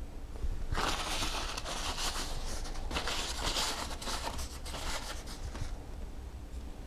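Close rustling and rubbing of hands handling parts, starting about a second in and lasting about five seconds.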